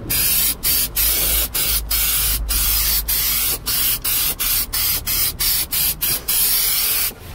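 Aerosol can of rust converter spraying into a car's wheel arch in a long run of short bursts with brief breaks between, the breaks coming quicker toward the end; the spraying stops about seven seconds in.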